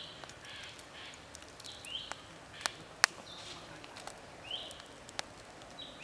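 A bird gives short rising chirps every second or two. Over it, a few sharp pops crackle from the glowing charcoal embers, the loudest about three seconds in.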